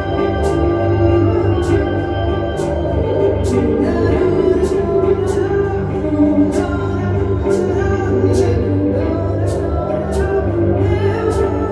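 Ambient music played live: layered held tones droning under a steady high ticking beat.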